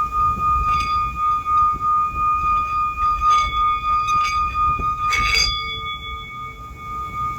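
Singing bowl ringing with one steady, held tone and fainter overtones above it. A few brief strikes or touches come around the middle, the last and strongest a little after five seconds in.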